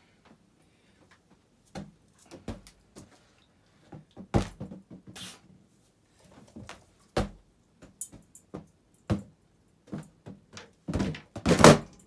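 Spinning ceiling fan blades striking a balloon: irregular sharp slaps and thwacks a second or so apart, ending in a loud rapid flurry of hits near the end.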